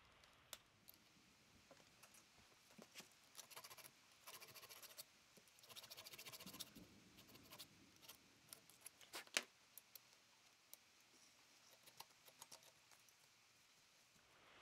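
Faint scattered clicks and scratching as a wire brush wheel on a bench grinder's shaft is handled and fitted by hand, with one sharper metallic click about nine seconds in.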